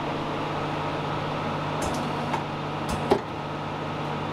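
A few light metal knocks and one sharper clunk about three seconds in, as the engine and gearbox shift against a catching point while they are hoisted out of the car on a crane, over a steady low hum.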